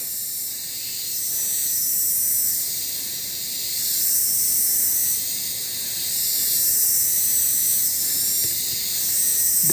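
Insect chorus: a steady high hiss that swells and fades in waves every second or two.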